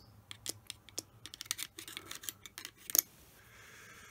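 Quick, irregular metallic clicks and small scrapes of a screwdriver tip working against a small steel collar from a lathe's feed reverse gear, loudest just before they stop.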